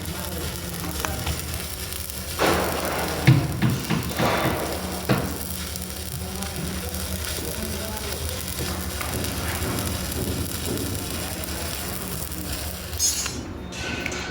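Electric arc welding on a steel pipe joint: the arc's steady hiss over a low hum, with a few sharp knocks a few seconds in. The hiss stops near the end.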